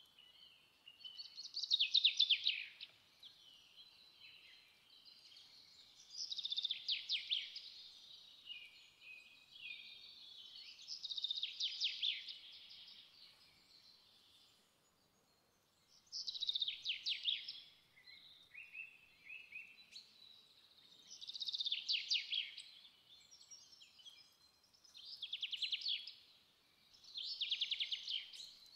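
A songbird singing: short phrases of rapid trilled notes, repeated about every four to five seconds.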